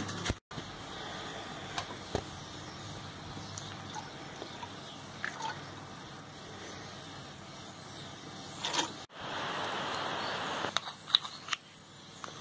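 Milk poured from a plastic bottle into a plastic measuring spoon over a bowl, with a few light clicks and taps of the spoon; the pouring is loudest for a second or so near the end.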